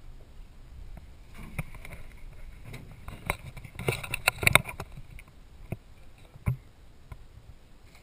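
Canoe hull knocking and bumping as it is lifted and set onto a pickup truck's bed: scattered knocks, a quick run of sharp knocks midway with the loudest about halfway through, and a duller thump later.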